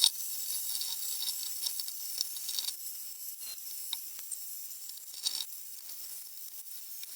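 Underwater sound picked up by a camera in a waterproof housing on the sea floor: a steady high hiss with scattered faint clicks and crackles.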